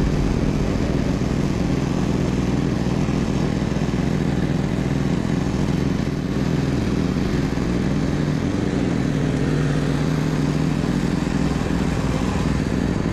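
Troy-Bilt Vortex 2890 three-stage snowblower running steadily under load, its engine and auger throwing snow out of the chute.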